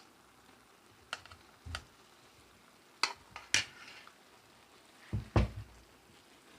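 Cooking utensil knocking and scraping against a pan as rice noodles are tossed and stirred: half a dozen irregular clanks, the loudest pair near the end.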